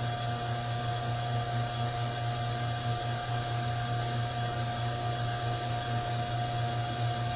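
Koeng on-car brake lathe running, spinning the brake disc on the car's hub: a steady low motor hum with a constant whine over it.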